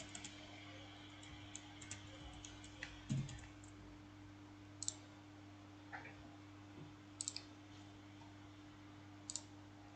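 Sparse, quiet clicks from a computer mouse and keyboard, about ten of them scattered irregularly, with a quick double click a little past the middle. A faint steady electrical hum sits underneath.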